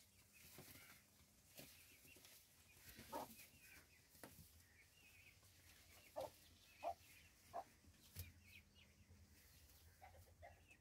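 A quiet pigeon loft: white feather-footed pigeons, with a few short, clipped bird calls, one about three seconds in and three more in quick succession between six and eight seconds.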